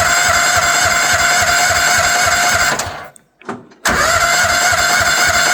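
Small carbureted gasoline engine of a Future FT15 mini excavator running at a steady pace on fresh fuel after a bad-gas drain. About three seconds in it dies away, then catches and runs again about a second later.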